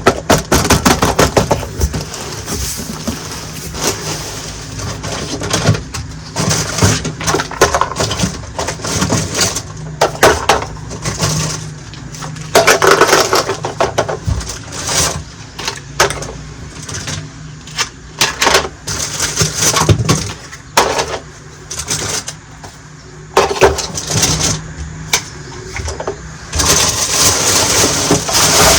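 Small plastic toy kitchen pieces and packaging handled close to the microphone: irregular clicks, taps and rattles. A steady rustling hiss starts near the end.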